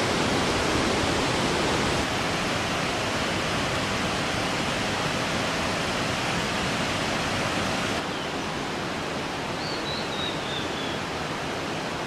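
Steady rush of water from a waterfall and the rocky stream below it pouring over boulders. It drops a little in level after about two seconds and again after about eight.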